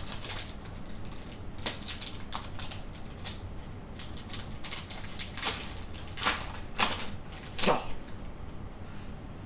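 Foil Pokémon booster pack wrapper crinkling and tearing as it is opened by hand, a string of irregular sharp crackles with the loudest ones in the second half.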